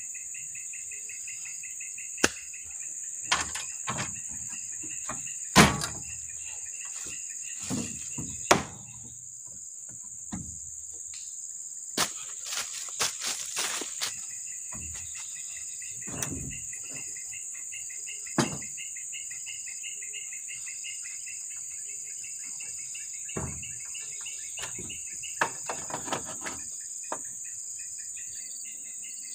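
A steady high chirring of forest insects with pulsing chirps, broken by scattered wooden knocks and clatter as plywood boards are handled and fitted on a pick-up's plywood camper box. The loudest knocks come about five and eight seconds in.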